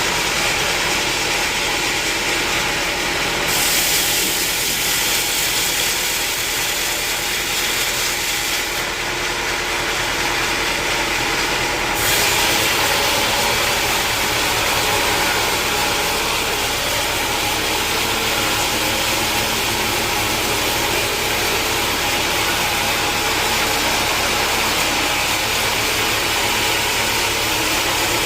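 Sawmill machinery running steadily, a dense mechanical noise with a steady hum under it; the hiss on top brightens a few seconds in, drops back, and brightens again about twelve seconds in.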